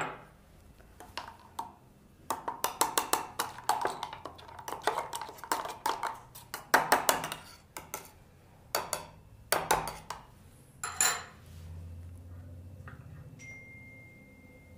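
Long metal bar spoon stirring in a stainless steel cocktail shaker, clinking rapidly against the metal walls in runs of quick ringing clinks, then a few separate clinks.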